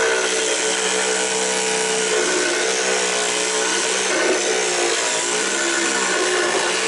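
Handheld electric saw with a long reciprocating blade running steadily as it cuts through the white hull float of a homemade pedal boat: a steady motor whine over the noise of the blade sawing.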